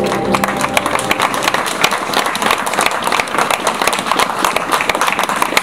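Audience applauding, a dense, steady clatter of many hands clapping; the closing music dies away just as it starts.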